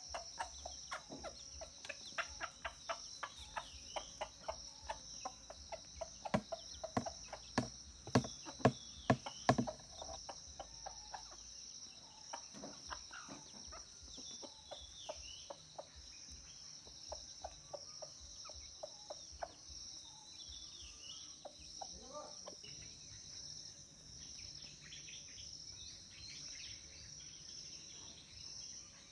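Chickens pecking scattered grain off bare dirt: quick sharp taps, several a second, for the first ten seconds or so, over a steady high insect chorus that runs throughout. A few faint bird chirps later on.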